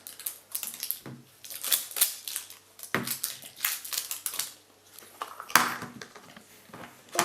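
Crinkling and clicking of plastic packaging handled and torn open by hand, in an irregular run of sharp crackles.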